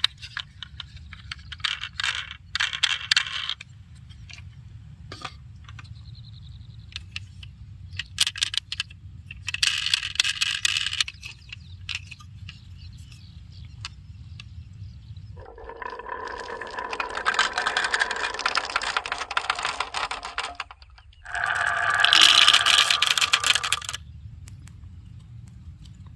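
Marbles rolling and clattering down a wooden marble run, with sharp clicks as they drop and hit the track pieces. This comes as several separate runs of a few seconds each, the longest about five seconds, over a low steady hum.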